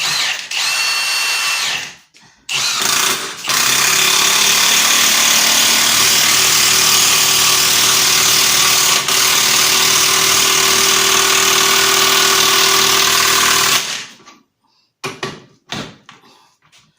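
Milwaukee cordless high-torque impact wrench driving a half-inch lag bolt into a 4x4 wooden post. It gives a short whirring start, then loud continuous hammering for about ten seconds as the bolt sinks deep, stops about 14 seconds in, and ends with a few short bursts.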